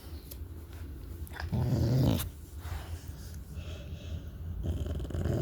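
Pet dog growling: a low, rough growl about a second and a half in, then a longer growl starting near the end.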